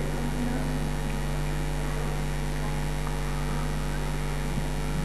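Steady low electrical mains hum from a microphone and public-address sound system.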